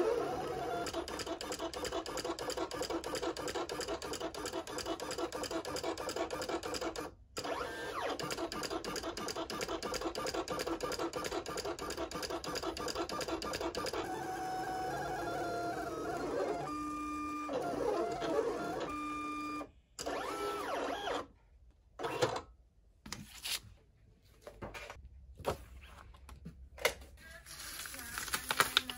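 Electronic craft cutting machine running as it cuts kraft cardstock: a busy whirring and buzzing from its motors as the carriage and rollers move, pausing briefly about seven seconds in and changing to steadier tones near the middle. It stops about twenty seconds in, and scattered rustles and taps of the cardstock being handled follow.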